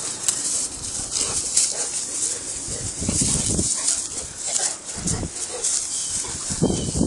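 Two Cane Corsos play-wrestling, with short dog vocalizations in three bursts about three, five and nearly seven seconds in.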